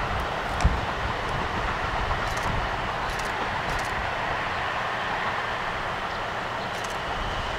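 Train running on the line: a steady rumble and rail noise that slowly eases off, with one sharp thump a little under a second in.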